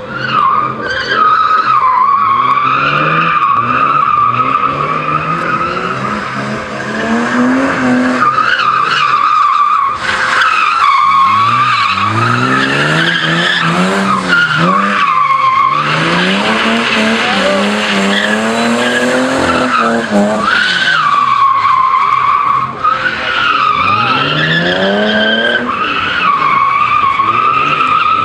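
BMW E30 sliding around a cone slalom: its tyres squeal in a long, wavering screech while the engine revs rise and fall again and again.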